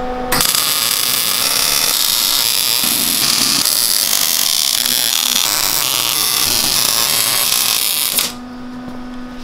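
Wire-feed welder arc crackling steadily while welding joints of a steel tube buggy frame. It stops about eight seconds in, leaving a low steady hum.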